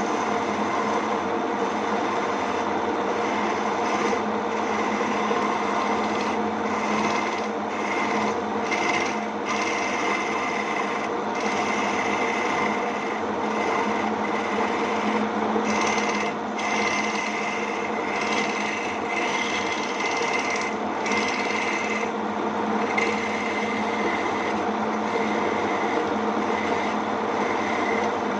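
Homemade wood lathe motor running steadily, with a tool scraping and rasping against the spinning wooden lure blank in repeated strokes.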